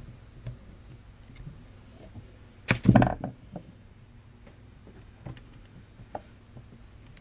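Small carburetor parts being handled on a workbench: light clicks and knocks, with one louder clatter about three seconds in.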